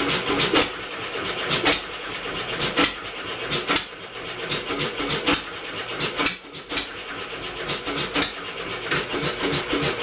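Homemade engine converted from a two-cylinder air compressor, turning over and firing unevenly: a fast mechanical chatter broken by sharp loud pops about once a second at irregular spacing. The intake is choked by a thumb held about three-quarters over it so the engine will draw fuel.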